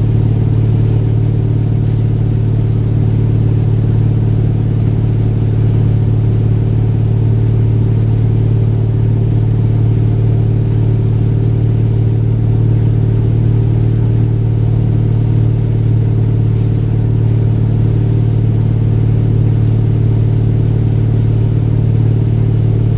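Tow boat's inboard engine running steadily at wake-surfing speed: an even low hum with a few steady tones above it.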